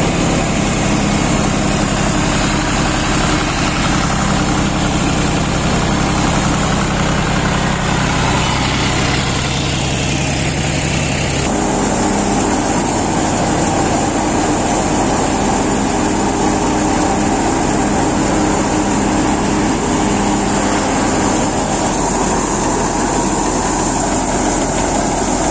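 A John Deere tractor's diesel engine running steadily under load, driving a Nandini grain thresher whose drum and blower whirr as straw is fed in. About halfway through, the engine's low hum drops back and the thresher's rushing noise takes over.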